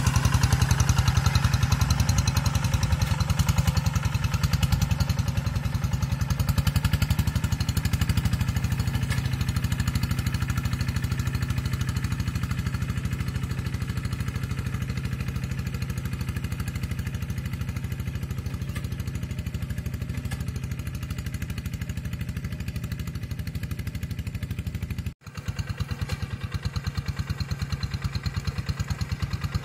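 Quick G1000 hand tractor's single-cylinder diesel engine running steadily under load while it ploughs wet, sticky paddy mud, with the rapid pulse of a single-cylinder engine. It grows gradually fainter as the tractor pulls away, cuts out for an instant near the end, then comes back louder.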